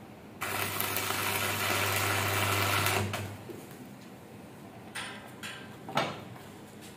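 Electric arc welding on a steel sprayer frame: a steady buzzing crackle with a low hum, lasting about two and a half seconds and then stopping. A few sharp metal knocks follow, the loudest about six seconds in.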